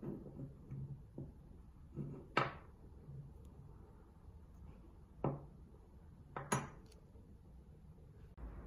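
A handful of sharp knocks and clinks of hard objects being handled. The loudest comes a little over two seconds in, another about halfway, and two close together about three quarters of the way through.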